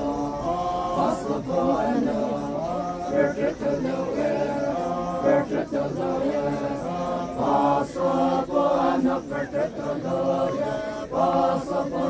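A group of Naga men singing a traditional chant together, unaccompanied, with several voices holding long notes.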